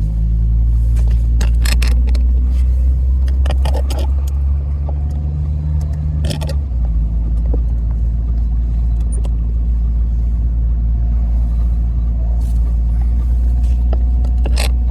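Vehicle engine and road rumble heard from inside the cab while driving, a steady low drone whose pitch pattern shifts about six and a half seconds in, with a few brief clicks and rattles.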